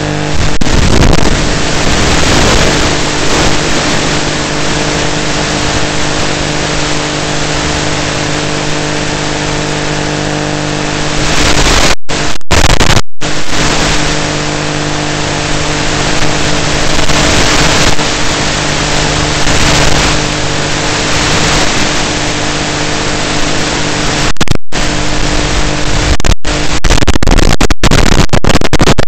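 Steady loud static hiss with a constant electrical buzz under it, cutting out in several brief dropouts near the middle and toward the end: the audio channel of an analog FPV video link.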